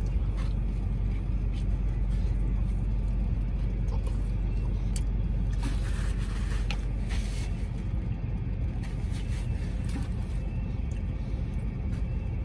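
Steady low hum of a parked car idling, heard from inside the cabin, with faint chewing and mouth sounds on top.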